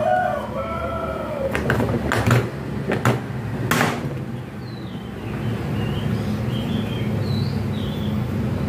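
A handful of sharp plastic knocks and clicks, about five between two and four seconds in, as the panels of a plastic storage cabinet are pressed and fitted together. A rooster's crow trails off in the first second, and a low steady rumble runs underneath.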